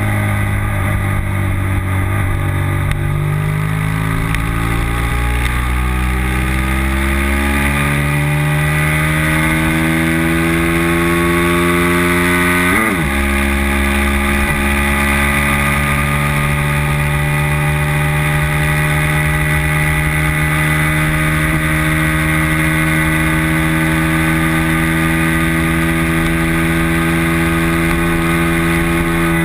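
Racing motorcycle engine at speed, heard from a tail-mounted onboard camera: the engine note drops over the first few seconds, then climbs steadily as the bike accelerates. About 13 seconds in there is one quick dip and recovery, like a gear change, after which the note holds at a high, nearly steady pitch, falling away right at the end.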